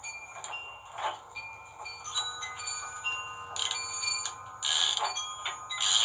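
Metal clinking and ringing from hand tools working on a steel winch cable and its fittings: many short, high ringing tones with a few rasping scrapes, the loudest over the second half.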